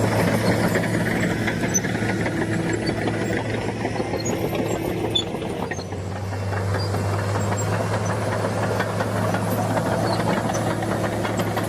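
Heavy diesel engine of earthmoving machinery running steadily under work, a constant low drone with mechanical clatter. It eases off briefly about halfway through, then comes back up.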